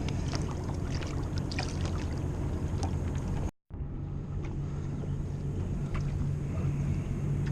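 Boat motor running steadily at a low hum, with water and wind noise and a few light clicks of handling. The sound drops out abruptly for a moment about three and a half seconds in, then the hum carries on.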